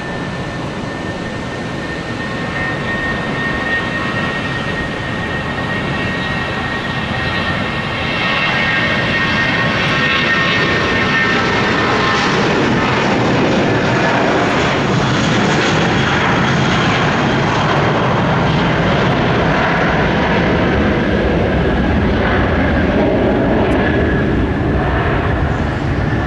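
Airbus A320's IAE V2500 turbofan jet engines at takeoff power during the takeoff roll: a rushing roar with a steady high whine over it. It grows louder over the first several seconds as the jet comes past, then holds.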